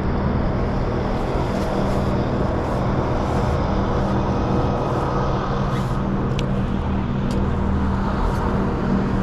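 Boat motor running steadily, a low even drone with a haze of wind and water noise over it.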